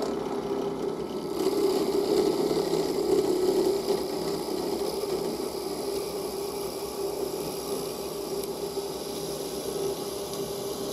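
Bench drill running with a steady motor hum while a 6 mm bit bores a hole through a small strip of walnut. The cutting is louder from about one and a half to four seconds in.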